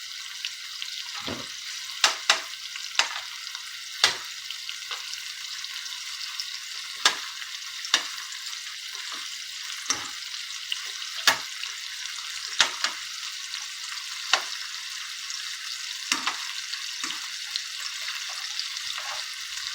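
Sausages frying in oil in a non-stick pan: a steady sizzle with sharp pops or clicks every second or two.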